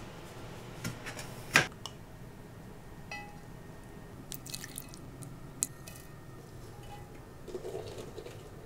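Kitchen handling sounds: a sharp knock about a second and a half in, as a metal tray is set down on a stone counter. Small clicks and taps of a glass container and seasoning jars follow, then a soft rustle near the end as shredded vegetables are tipped into the glass container.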